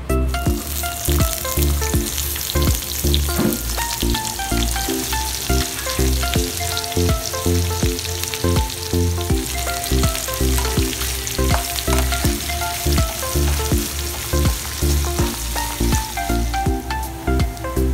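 Mustard seeds and then sliced onions frying in hot oil in a pan, a steady sizzle with stirring that fades near the end. Background music with a steady beat plays throughout.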